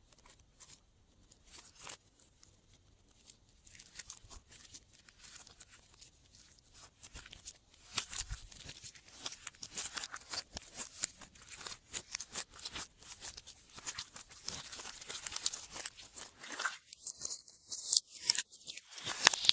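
Slime being squished and worked by hand, giving sticky crackling and clicking. The crackle is sparse at first and becomes busy and louder from about eight seconds in.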